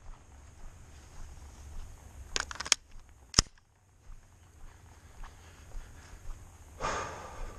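Handling of a 9mm AR pistol: a quick cluster of small metallic clicks and rattles, then one sharp, louder snap about a second later, and a short rustle near the end.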